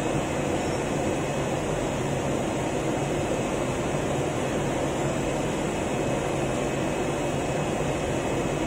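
CNC knife cutting machine running while its cutting head works through 20 mm polyester fibre acoustic board: a steady mechanical hum and whir with a faint high tone, unbroken and even in level.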